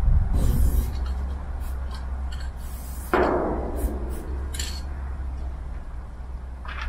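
Aerosol spray-paint cans hissing in short bursts against the metal side of a freight wagon, over a steady low rumble. About three seconds in, a sudden knock rings out and fades over about a second.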